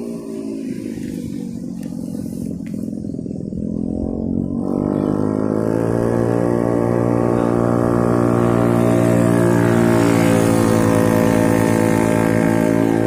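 Vehicle engine running under load. About four and a half seconds in it grows louder and its pitch rises slowly as the vehicle speeds up.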